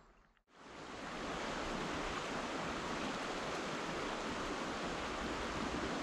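Flowing water of a stream: a steady rushing wash that fades in about half a second in, then holds even.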